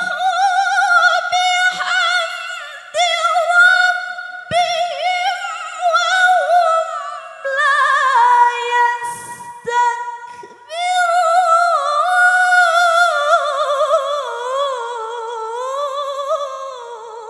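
A woman reciting the Quran in the melodic tilawah style into a microphone, holding long phrases with quick ornamental wavering of pitch. She takes a sharp breath about nine seconds in, and near the end a long phrase falls in pitch and trails away.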